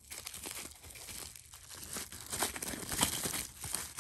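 Packaging crinkling and rustling as it is handled during unboxing: a dense run of small crackles and clicks.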